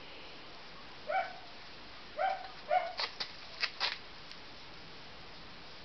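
A dog yipping in three short, high-pitched calls, followed by a few sharp clicks about three seconds in.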